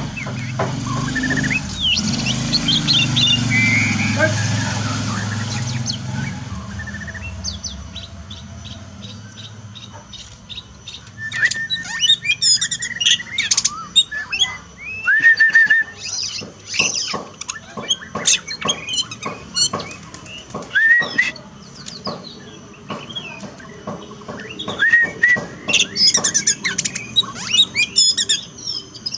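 Songbird singing a fast, varied song of sharp chirps and whistled notes that rise and fall, the kind of recording used to train a pet magpie-robin. A low rumble sits under the song for the first few seconds and has faded by about six seconds in; the song is loudest and densest from about eleven seconds on.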